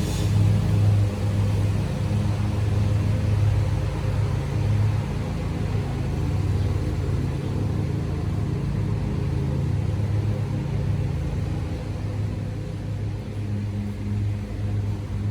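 Steady low mechanical hum with a few constant tones, running evenly throughout.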